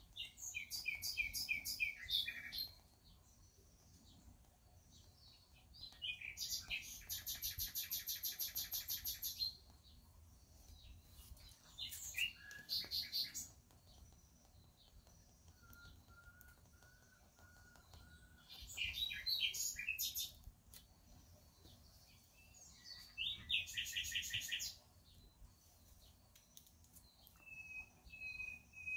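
A songbird singing in short phrases every few seconds, chirps mixed with fast trills, one of them a long, even trill lasting about three seconds.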